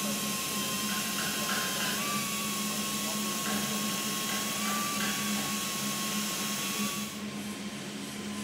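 A power tool running steadily with a hissing noise and a steady whine that wavers slightly in pitch. About seven seconds in the hiss drops away and the sound becomes quieter.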